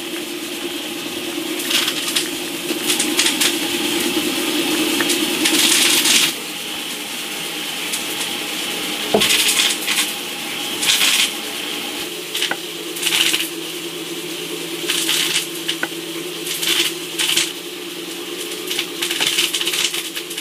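Cats eating wet food from ceramic bowls: repeated short bursts of chewing and licking, with a few light clinks against the bowls.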